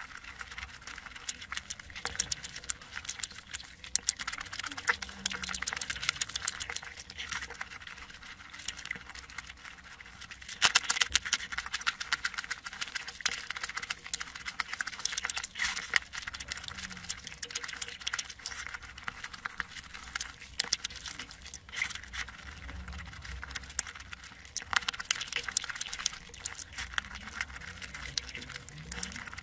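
Close-miked eating sounds: fingers squishing and mixing rice with curry and crisp fried onions, giving a dense run of quick wet crackles and clicks, along with chewing.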